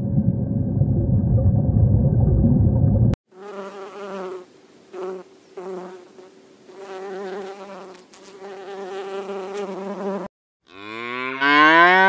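A low rumbling noise for about three seconds, then bees buzzing, a wavering hum that stops and starts for about seven seconds. Near the end a calf moos once, the loudest sound, its pitch rising and then levelling off.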